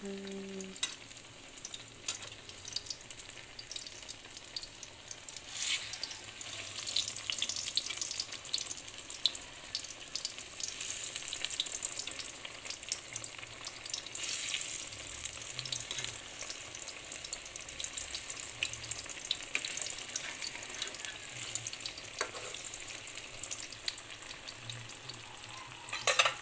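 Banana halves shallow-frying in hot oil in an aluminium wok: steady sizzling, full of crackles and spits. It swells louder a couple of times as a metal spatula stirs and turns them, and there is a sharp knock near the end.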